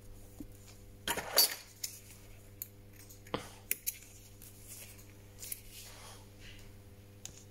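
Tweezers and small parts clicking and clinking against the metal frame of an opened Samsung Galaxy S9 Plus: a quick cluster of clicks about a second in, then a handful of single clicks. A steady low hum runs underneath.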